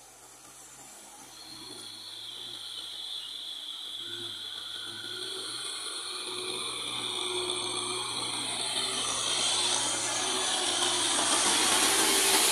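Kubota tractor's engine and rear rotary tiller working through wet paddy soil, a steady mechanical hiss and hum that grows steadily louder as the tractor comes close.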